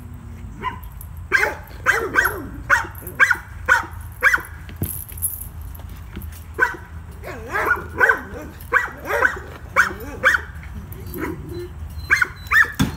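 A dog barking and yelping in quick runs of short, sharp calls, in three bouts with pauses between.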